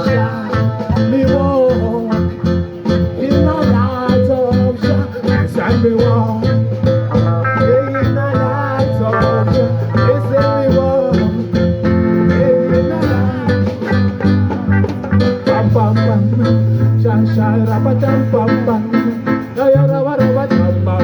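Live band music: plucked guitar playing over held bass notes, in an instrumental stretch of a jam.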